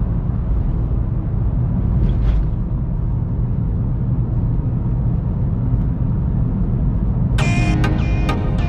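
Steady low rumble of a car driving on a city road, heard from inside the car. Near the end, music with bright struck notes comes in over it.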